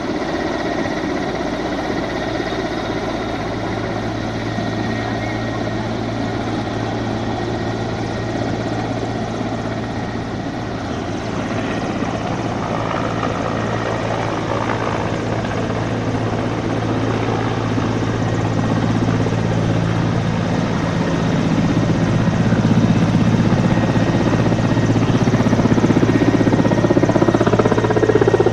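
Aircraft running overhead: a steady low hum with a broad rush that grows louder over the second half.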